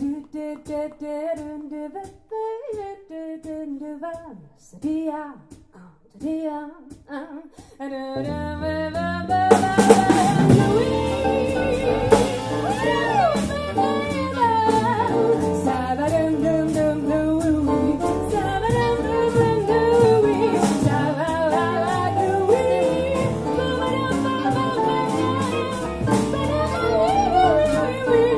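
Female jazz vocalist scat singing, at first alone in short, separate phrases; about eight seconds in, the band of piano, guitar, bass and drums comes in and she scats on over it.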